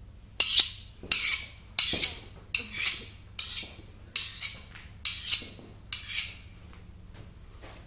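A metal blade scraping and clinking against metal in a series of about a dozen sharp strokes, many in quick pairs, each with a short ringing tail, like a knife being sharpened or blades knocked together. It is a sound effect in a binaural 3D audio drama.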